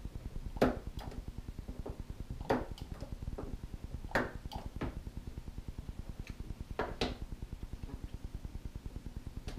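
Battery spot welder firing onto the terminals of 18650 lithium cells: sharp snapping zaps, four strong ones a second or two apart with weaker ones between. A steady fast low pulsing hum runs under them.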